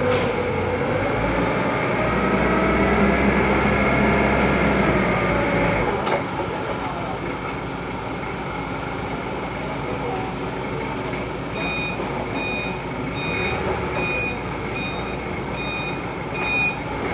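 Forklift engine running, louder for the first six seconds or so and then settling lower as it manoeuvres. In the second half the forklift's reversing alarm sounds as a steady, evenly spaced series of high beeps.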